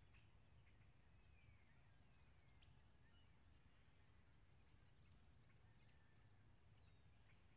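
Near silence with small birds chirping faintly and high, a cluster of short chirps about three seconds in and a few more after, over a low steady rumble.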